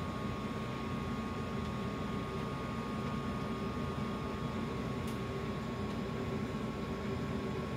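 Steady hum and hiss of a running machine, with a faint high whine held steady throughout, and a single faint tick about five seconds in.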